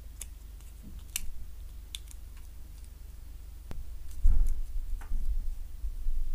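Black plastic model kit parts being pressed and snapped together by hand: a few sharp, separate plastic clicks, then louder handling knocks and rubbing from about four seconds in.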